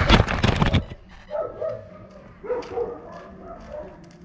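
Electric RC car running loudly with rattling clicks, cutting off about a second in; then a dog's short whines and yips, twice louder around one and a half and two and a half seconds in.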